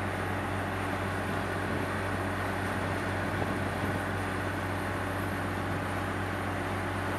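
Truck-mounted borehole drilling rig and its air compressor running steadily with a deep, even hum, mixed with the rush of air-lifted water gushing out of the borehole.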